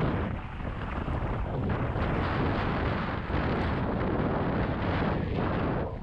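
Wind rushing over a GoPro Hero 7's microphone while a mountain bike is ridden, a steady rumbling noise that eases off right at the end.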